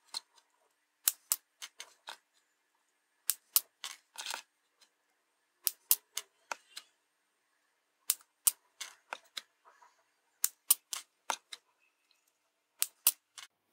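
Flush cutters snipping the leads of RGB LEDs: sharp clicks, mostly in pairs, about every two seconds, with lighter ticks in between.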